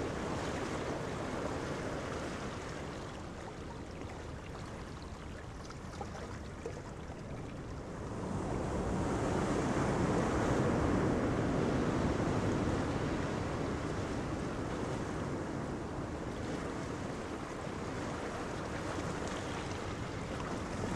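Steady rushing sound of ocean surf and wind, swelling about eight seconds in and slowly easing off again.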